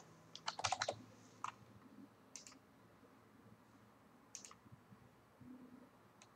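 Faint computer keyboard typing, a quick run of about six keystrokes, followed by a few separate mouse clicks spaced a second or two apart.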